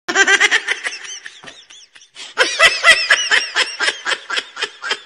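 High-pitched laughter in rapid, fast-repeating pulses, in two long bouts with a short break about two seconds in.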